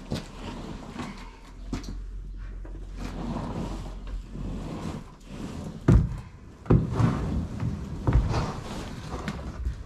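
An old floor covering being pried and pulled up off a wooden parquet floor: scraping and rustling with several sharp wooden knocks, the loudest about six seconds in.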